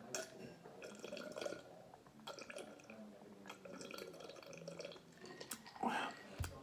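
A person gulping down orange Fanta from a glass: a series of swallows, about one a second. A louder short sound comes near the end as the glass is lowered.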